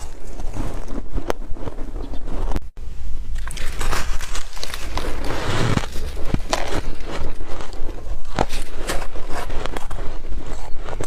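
Real snow being bitten and chewed close to the microphone: dense, irregular crunching and crackling, with a brief dropout a little under three seconds in.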